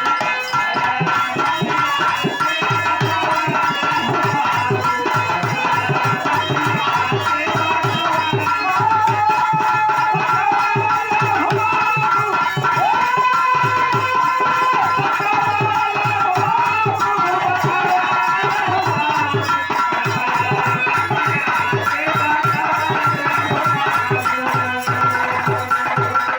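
Birha folk instrumental interlude: a dholak drum plays a fast, steady rhythm under sustained harmonium chords and a wavering harmonium melody.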